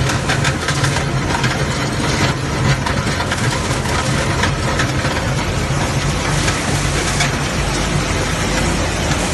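Wood pellet mill and its belt conveyor running with a steady low hum and a loud wash of machine noise, under a dense crackle of clicks, thickest in the first half, as fresh sawdust pellets drop from the chute onto the cleated rubber belt.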